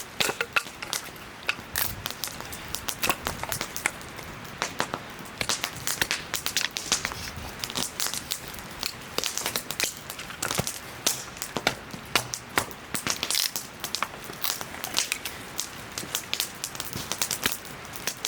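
Wood fire crackling and popping, with many sharp, irregular snaps.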